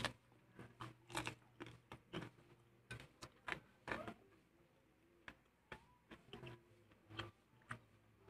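Close-miked chewing of a mouthful of crispy breaded fried chicken: irregular crunches and wet mouth clicks, a few a second.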